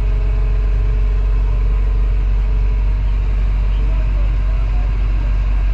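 Diesel engine of a Volvo construction machine running steadily, heard from inside its cab as a constant low drone.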